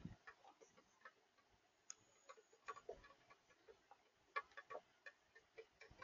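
Near silence broken by faint, irregular small clicks and ticks, a few each second, with the sharpest one a little after the middle.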